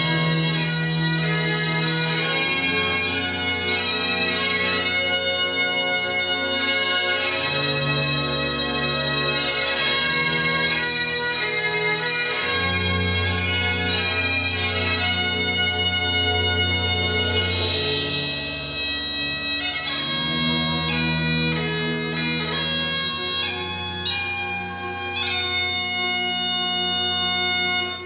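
Highland bagpipes playing a tune in full, steady sound, over a bass line that changes note every second or two.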